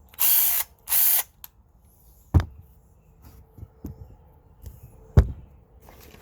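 Worx 20-volt cordless impact drill triggered twice with no load, its motor running in two short bursts within the first second or so. Later come two sharp knocks, about three seconds apart.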